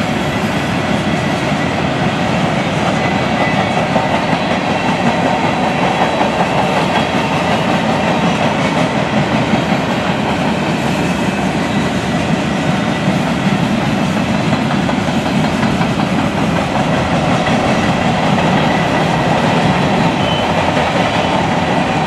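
Freight train cars (boxcars, a lumber flatcar, covered hoppers) rolling past close by: a steady, loud rumble and rattle of steel wheels on the rails.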